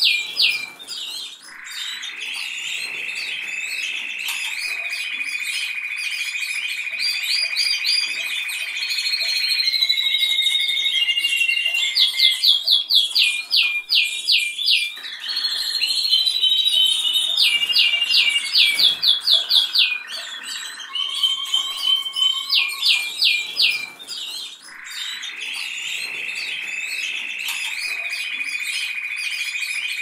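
Canary singing: long, fast trills held on one pitch for several seconds at a time, alternating with runs of quick, repeated sweeping notes.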